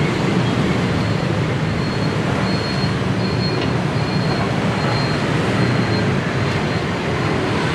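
Steady rumble of street traffic, with no distinct knocks or cuts standing out.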